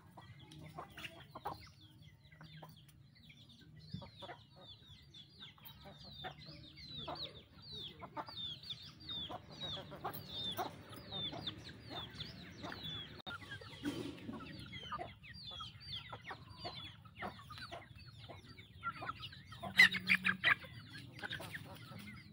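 Domestic chickens and chicks calling while they forage: a long run of short, high, falling peeps through the middle, with clucking and a louder cluster of calls near the end.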